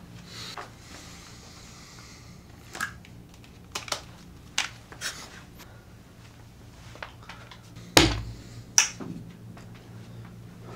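Scattered light clicks and taps of small objects being picked up and handled, with a louder knock about eight seconds in and another just under a second later.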